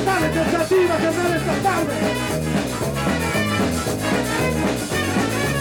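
Live ska band playing an instrumental stretch between sung lines: trombone and trumpet play the melody over electric guitar and a steady bass and drum beat.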